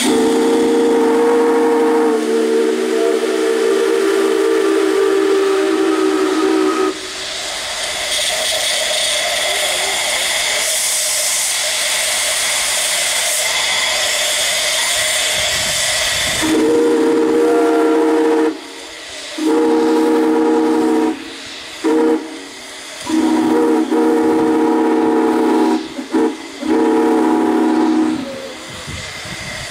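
Steam whistle blowing a long blast of several steady tones for about seven seconds, then only escaping steam hissing. Partway through, the whistle starts again in a run of blasts, long and short with brief breaks, over the continuous hiss of steam.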